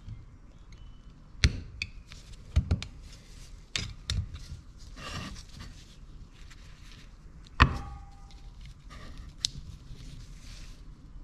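Scattered metal clicks and knocks as a small pick and coil springs are worked by hand into a 1970 Honda CT90 clutch housing, fitting the springs into their grooves. The loudest is a sharp metallic knock with a short ring a little past two-thirds of the way through.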